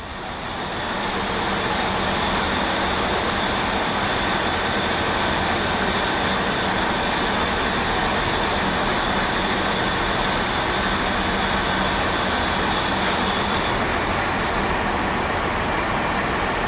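A Class 165 diesel multiple unit runs slowly into the platform, its engines giving a steady rumble with high, steady whining tones. The sound fades in over the first second or two, and some of the high whine cuts out about three-quarters of the way through.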